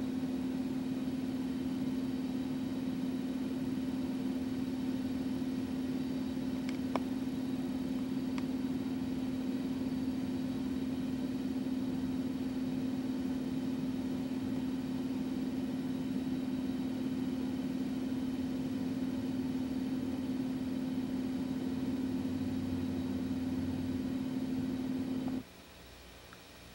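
Steady machine hum held at one constant pitch, with two faint clicks about a third of the way through. It cuts off abruptly near the end.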